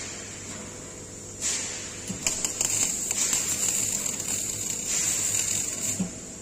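Gas-shielded (MIG/MAG) welding arc on a steel pipe and flange: a hiss about a second and a half in, then the arc crackles and sizzles for about four seconds and cuts off sharply near the end.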